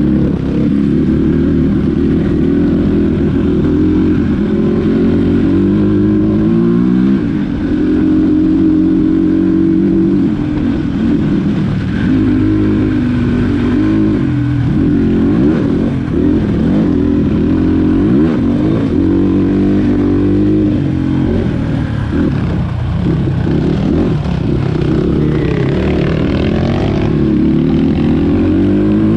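Dirt bike engine running under load, its revs rising and falling over and over with the throttle.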